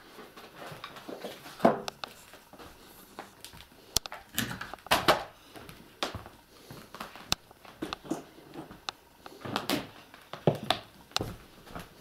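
Irregular knocks, bumps and rustles in a small room, of people moving about and handling things; no vacuum cleaner is running.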